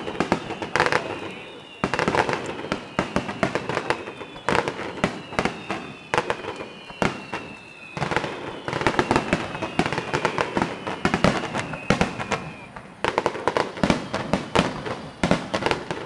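Fireworks display: a dense barrage of aerial shell bursts, many sharp bangs in quick succession. High whistling tones slide slowly down in pitch among them.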